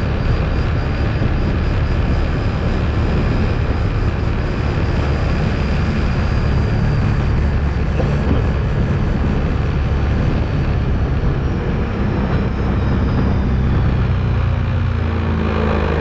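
ATV engine running steadily under way, a continuous low drone whose pitch shifts a little near the end.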